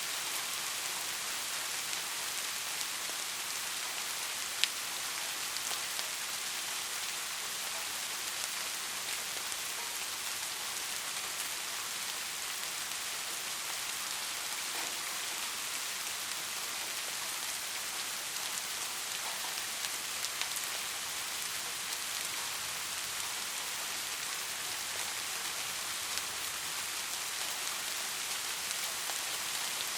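Steady rain falling, an even hiss with scattered drop ticks, and one sharper drop click about four and a half seconds in.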